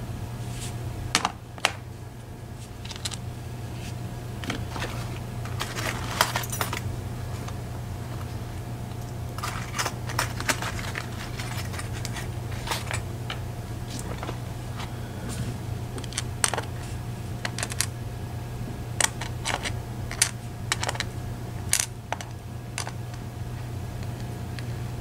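Small metal clicks and taps from lock pins and a fine tool on an aluminium pinning tray while a Medeco Biaxial lock cylinder is taken apart. The clicks are scattered, with a couple of quick runs of rattling taps.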